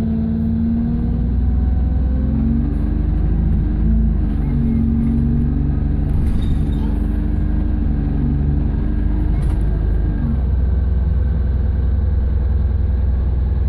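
Bus engine running with a loud, steady low rumble, its engine note shifting in pitch a few times as the bus changes speed.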